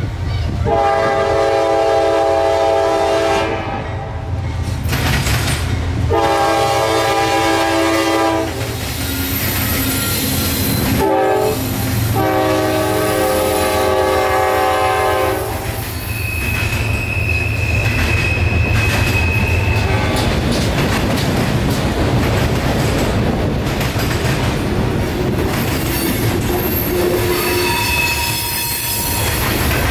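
CSX freight train's locomotive horn sounding the grade-crossing signal: two long blasts, a short one and a long one. The freight cars then roll past with steady wheel-and-rail clatter and a high wheel squeal for a few seconds after the horn ends.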